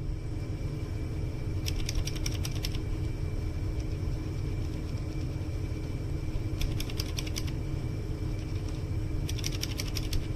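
Cherry MX-style mechanical keyboard switches being typed on in three quick runs of rapid clicks, about two seconds in, in the middle and near the end, over a steady low hum.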